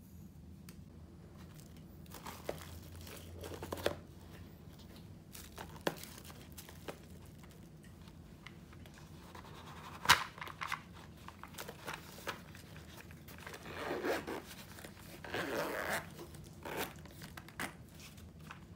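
Handling sounds of packing a plastic lunchbox into a foil-lined insulated lunch bag: scattered clicks and knocks of the plastic container, one sharp click about ten seconds in the loudest, and crinkling rustles of the bag's lining and fabric later on.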